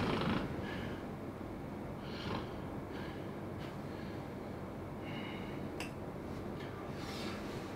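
A man breathing in his sleep, with a few short faint nasal sounds over quiet room tone.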